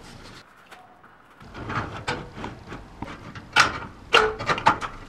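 Handling noise from steel drywall framing profiles and flexible corrugated electrical conduit: scraping and rustling about a second and a half in, then a quick run of sharp clicks and knocks.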